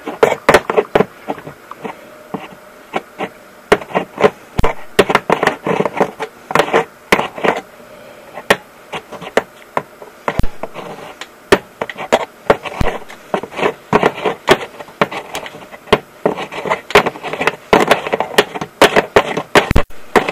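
Spark plug grounded on the engine snapping with sparks from a 12-volt ATV CDI ignition: a fast, irregular series of sharp clicks with short buzzy crackles between them, a sign that the new CDI ignition is firing.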